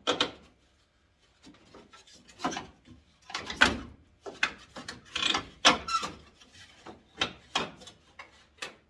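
Headlight assembly of a 1991 Ford Ranger being worked loose from its mounting clips: a run of irregular knocks and clicks, with a longer rubbing scrape just past the middle.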